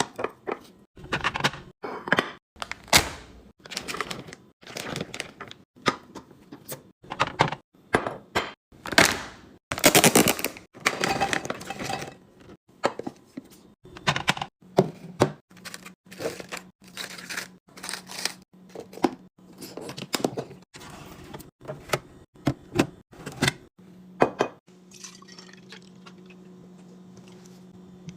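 Containers and packaging being handled and set down during restocking: a quick run of clicks, knocks and clatters with brief rustling rushes. A steady low hum comes in about halfway.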